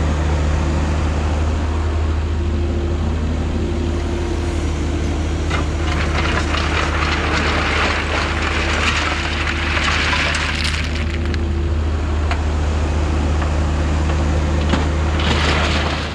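Diesel engine running steadily under work, with scraping and crunching of dirt and stone over it, loudest about eight to eleven seconds in.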